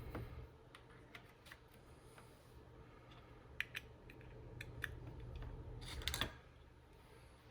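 Faint, irregular light clicks and taps of small hardware being handled as the original Apple SSD is fitted into its adapter and connected, over a low hum that stops about six seconds in.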